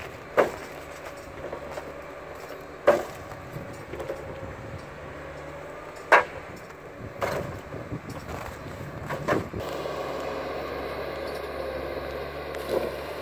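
Timberpro 840B forwarder's diesel engine running steadily, with sharp wooden knocks every few seconds as logs are handled and dropped; the engine note changes about two-thirds of the way through.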